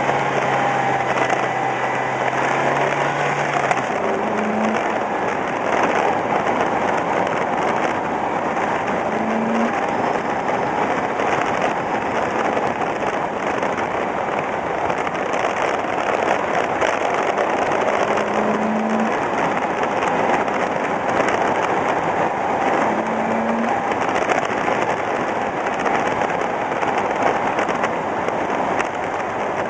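A car driving along a rural road: a steady, rough rush of tyre and wind noise, with a low engine note in the first few seconds.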